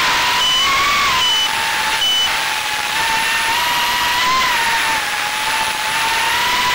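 A 3-inch FPV quadcopter's EMAX RS1408 3600KV brushless motors and propellers whining in flight, the pitch dipping and rising a little with throttle. Short high beeps sound about every 0.8 s over it and stop a little after two seconds in.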